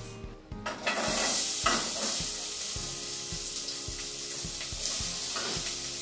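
Chopped onion and garlic hitting hot oil in a stainless steel pot and sizzling, starting suddenly about a second in, loudest just after, then sizzling steadily.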